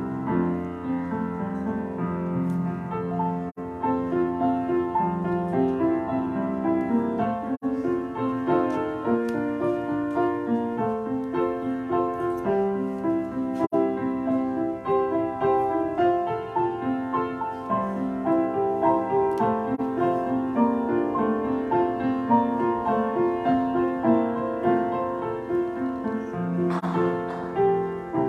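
Piano playing a slow postlude, with notes and chords following one after another. It closes the worship service after the benediction.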